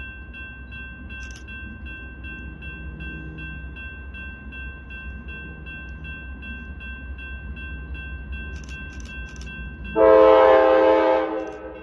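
Approaching diesel locomotive sounding its multi-chime air horn once about ten seconds in, a single blast of under two seconds that is by far the loudest sound. Before it there is a low rumble and a steady, high, bell-like ringing with a faint regular beat.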